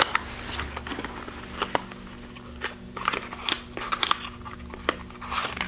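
A small cardboard blind box being opened by hand: scattered crackles, crinkles and small clicks of the packaging, over a faint steady hum.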